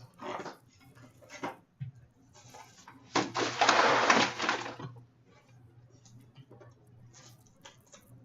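Packaging rustling and scraping as a hockey card box is opened, with a loud, noisy stretch of about two seconds starting about three seconds in, then faint small clicks of handling.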